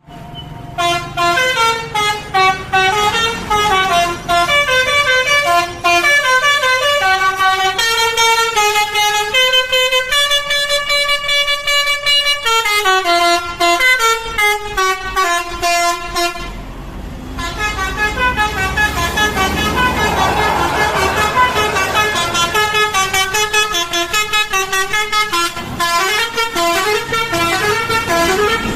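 An ANS bus's telolet horn, a multi-note musical air horn, plays a Bollywood melody one held note after another, with the bus's engine running underneath. About seventeen seconds in the tune breaks off for a moment, then picks up again.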